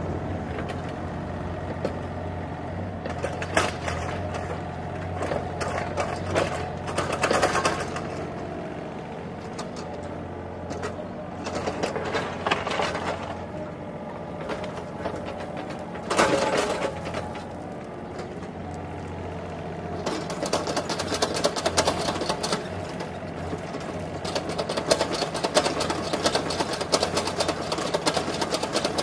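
Toy remote-control excavators running: a steady electronic engine sound, with spells of small electric motors whirring several times and a fast, dense rattling from about two-thirds of the way in.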